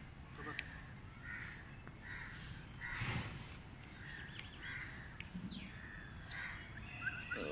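A crow cawing repeatedly, short harsh calls spaced about half a second to a second apart, over a low steady background rumble.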